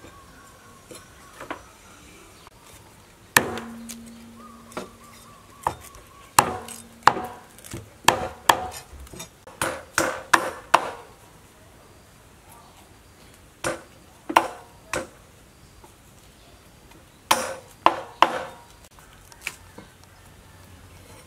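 Cleaver chopping a fish on a wooden table: sharp chops, some single and some in quick runs of several, with pauses between. The first hard chop leaves a low ring for a few seconds.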